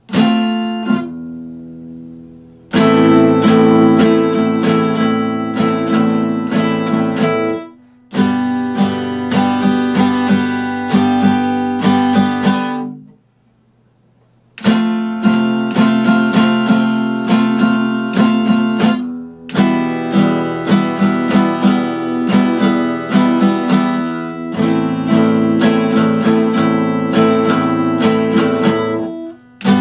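Epiphone acoustic guitar strummed in chords, in phrases broken by short pauses. The longest pause, about thirteen seconds in, lets the strings fall silent for over a second.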